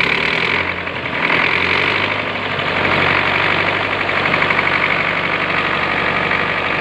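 Old Belarus tractor's diesel engine running at idle, its inline injection pump freshly repaired. The sound dips briefly about a second in, then runs steadily again.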